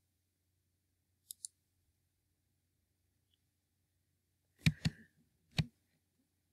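Computer mouse clicks in a quiet room: a faint double click about a second in as the slide advances, then three sharper, louder clicks near the end.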